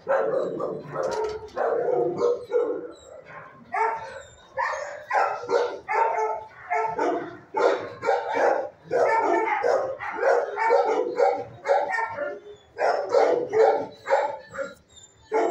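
Shelter dogs in their kennels barking over and over, about two sharp barks a second, with brief lulls about three seconds in and again near the end.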